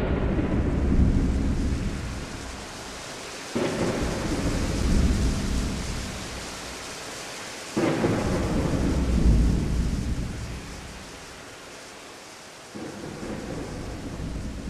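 Thunder over steady rain: four sudden rumbling claps a few seconds apart, each dying away slowly.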